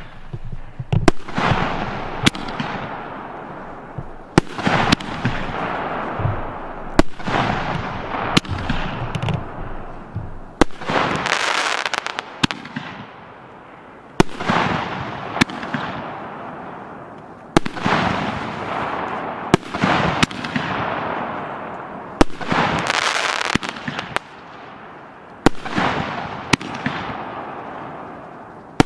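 Piromax PXB3622 'Sharp' 12-shot, 50 mm calibre F3 firework battery firing shot after shot: sharp bangs about every one to two seconds, each followed by a hiss that fades.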